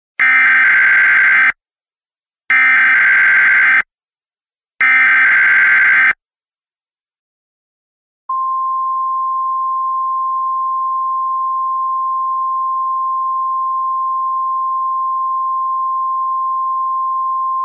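Emergency Alert System SAME header: three identical bursts of screeching digital data tones, each a little over a second long, encoding the start of the alert. About two seconds after the last burst, the steady single-pitch National Weather Service warning alarm tone of NOAA Weather Radio begins and holds.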